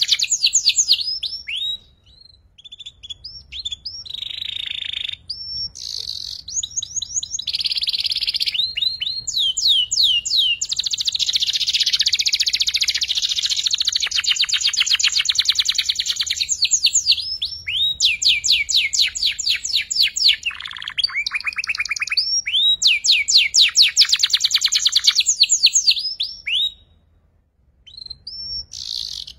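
Young canary singing in long, very fast trills with short rising chirps between phrases: a juvenile still learning the rapid 'ngeriwik' trill. There are brief breaks about 2 and 5 seconds in and near the end.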